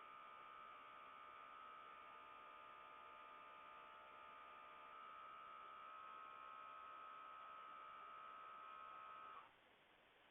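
A steady, faint whine, one tone with several overtones, that steps up a little in loudness about halfway through and cuts off suddenly near the end. The owner suspects it comes from a Samsung RF25HMEDBSR French door refrigerator.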